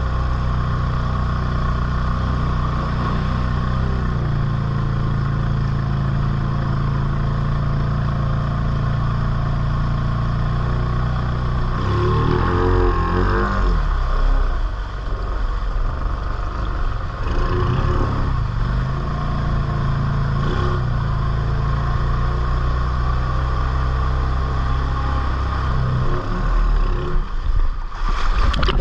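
ATV engine running at a steady throttle, revving up and down about twelve seconds in, again a few seconds later, and harder near the end.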